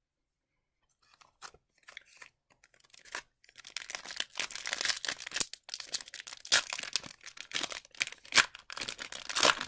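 A 2021-22 Upper Deck MVP hockey card pack being torn open, its wrapper crinkling and crackling: scattered crackles at first, turning dense from about three seconds in.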